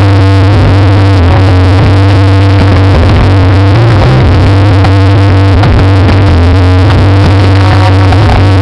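Very loud synthesizer-heavy music with a steady deep bass.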